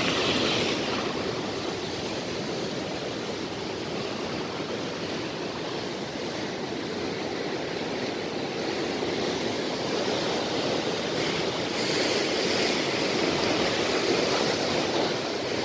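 Sea surf washing and foaming against a rocky shore, a steady rush that grows a little louder in the second half.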